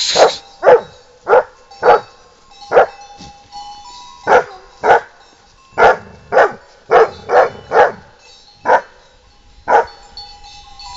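Young Kangal shepherd dog barking, about fourteen single barks spaced irregularly, with a quick run of three a little past the middle. It is warning barking at someone nearby.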